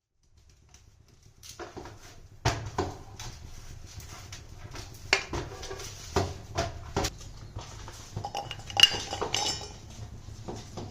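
Metal kitchen utensils, pots and spoons, clinking and knocking in irregular strikes that begin about two seconds in. The loudest strike, about nine seconds in, gives a brief metallic ring.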